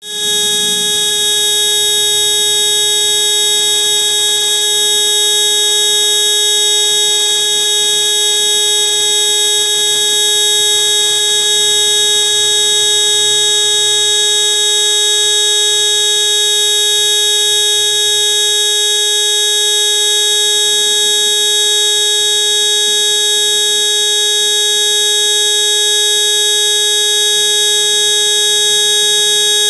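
Mitsubishi forklift's electric horn sounding one continuous, steady buzzing tone that does not change in pitch.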